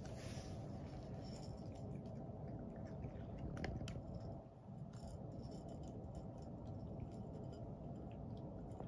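A cat crunching dry kibble from a small dish: a run of short, crisp crunches over a steady low hum from a fan heater.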